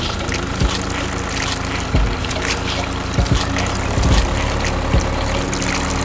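Steady running of a small engine-like motor, a low hum with scattered knocks, with liquid pouring and splashing into a small metal bucket.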